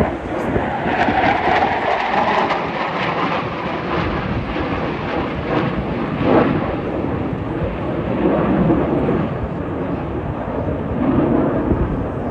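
Loud, steady rumbling noise of an aircraft flying by at an air show.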